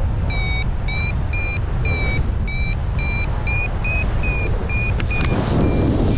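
Paragliding variometer beeping in short high beeps about twice a second, its climb tone signalling strong lift, over steady wind rush on the microphone. The beeps fade out about five seconds in, leaving the wind.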